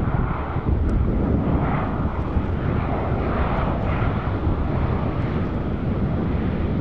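Alenia C-27J Spartan's two Rolls-Royce AE 2100 turboprop engines and propellers running as the transport comes in on approach to land, a steady, loud rumble.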